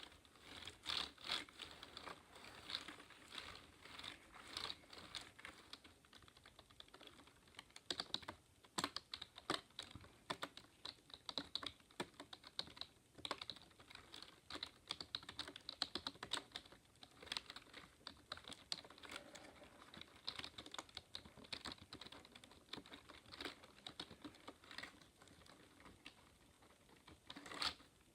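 Typing on a Dell computer keyboard: an irregular run of key clicks with brief pauses and a few louder keystrokes.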